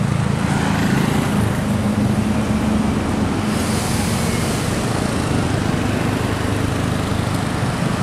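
Road traffic passing: vehicle engines running with tyre and road noise. The hiss gets louder about three and a half seconds in as a vehicle comes close, and no horn sounds.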